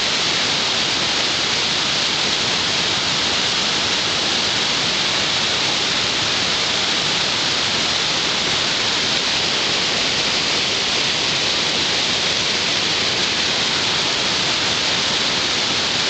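Shallow river water spilling over a low rock ledge in a small cascade: a steady, even rushing hiss that does not change.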